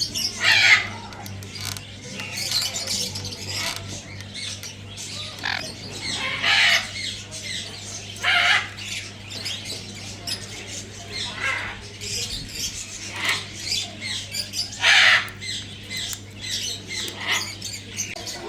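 Sun conures squawking: short, shrill calls repeated every second or few, with the loudest about a second in, near the middle and near the end.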